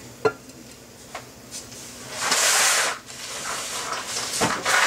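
Thick sourdough starter being poured from a jar into a glass measuring cup, with a sharp click just after the start and a loud hiss lasting under a second about halfway through.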